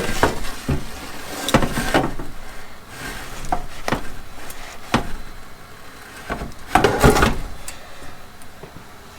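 Handling noises: irregular knocks and rubbing as hard objects are moved and set down, with a loud cluster of knocks about seven seconds in.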